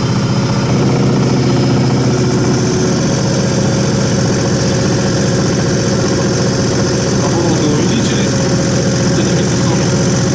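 Diesel injection-pump test bench running a common-rail high-pressure fuel pump: a steady, loud mechanical drone with a fast even pulse, its note shifting slightly about three seconds in.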